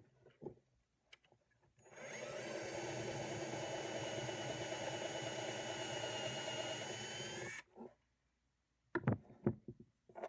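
Power drill with a 1/4-inch bit running steadily for about six seconds, boring deeper into a golf ball, then stopping. A few short knocks of handling come before it starts and again near the end.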